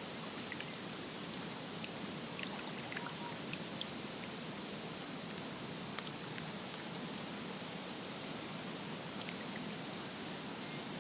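Steady rush of water at a lake's edge, with scattered faint plinks throughout.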